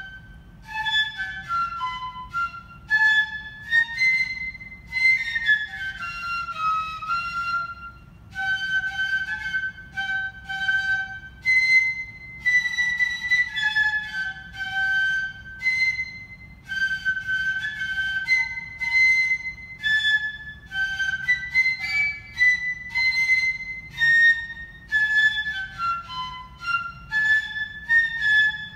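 A flute playing a hymn-tune melody one note at a time, in short phrases separated by brief breaths.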